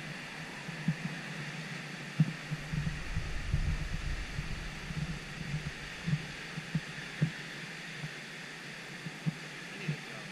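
Steady hiss of ocean surf, broken by irregular low thumps, the sharpest about two seconds in and again about seven seconds in.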